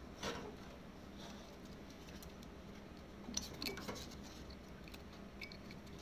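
Faint clicks and rattles of hands handling the wiring and terminal cover on top of an air-conditioner compressor, sharpest just after the start and in a cluster a little past the middle.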